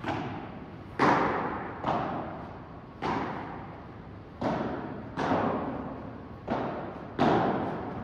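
Padel rally: sharp hits of rackets on the ball, about one a second and eight in all, each with a long echoing decay in the court hall.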